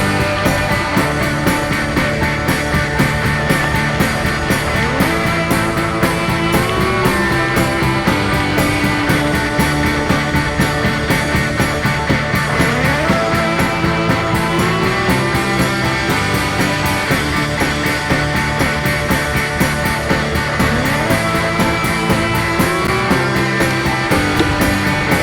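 Rock music with a steady beat, sliding guitar lines and drums.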